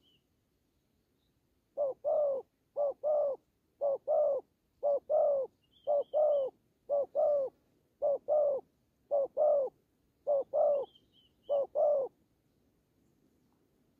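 Spotted dove cooing: a run of about ten two-note coos, each a short note followed by a longer one, repeated roughly once a second and stopping about 12 seconds in.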